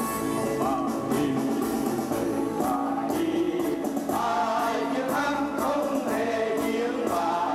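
A group of men singing a song together in unison over instrumental backing, with hands clapping in time to the beat.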